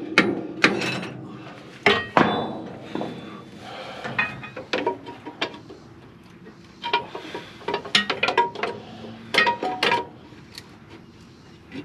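Steel tools knocking and clinking against the steel boom brake band of a Bucyrus-Erie 22B dragline as it is pried into place. Irregular sharp metal strikes come in quick clusters, some with a short ring.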